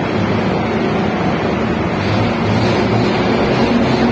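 Shotcrete spraying machine running in a tunnel: a loud, steady mechanical din of engine, pump and air, with a steady hum that grows plainer about halfway through.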